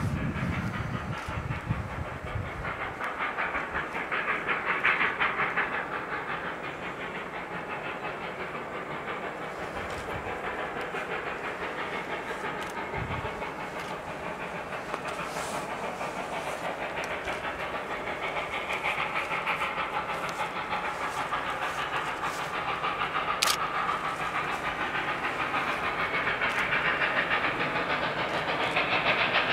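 Steam locomotive approaching under power, its exhaust beating steadily with hissing steam, growing louder as it nears.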